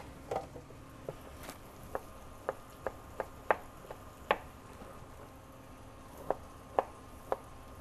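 Chef's knife chopping smoked beef fajita on a plastic cutting board: a string of sharp, uneven knocks, with a pause of a second or two midway.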